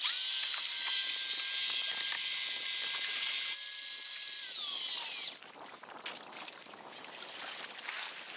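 Daiwa Seaborg 200J-L electric fishing reel's motor winding in line: a high whine that starts abruptly and runs steady for about three and a half seconds. It then drops in level and falls in pitch as the motor slows and stops about five seconds in.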